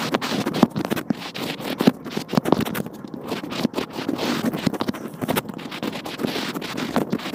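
Close-miked crunchy scraping and crackling as a pen-like tool is drawn through crumbly black material on a board, in many small irregular crunches.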